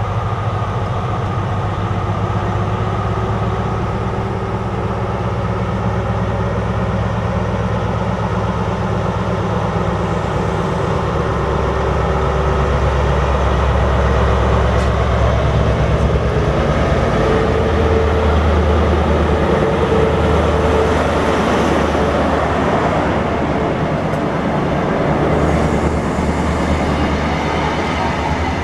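CrossCountry High Speed Train, its Class 43 power car's MTU V16 diesel engine running with a steady low drone, growing louder as the power car comes alongside about halfway through and the coaches roll past.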